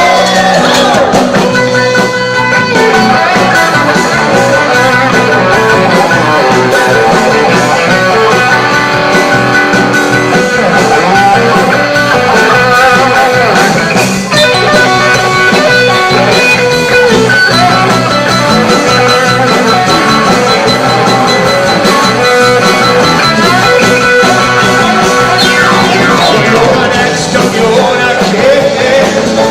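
Live rock band playing an instrumental break with electric guitar out front over bass and drums, with long held lead notes in the second half.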